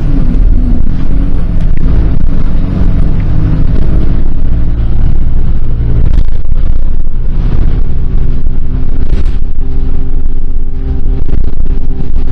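Motor vehicle running: a loud, steady low rumble with a droning engine hum.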